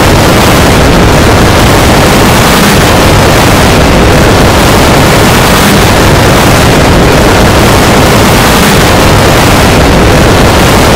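Loud, heavily distorted noise, steady throughout with no clear tone or beat: an over-amplified, effects-processed logo sound track.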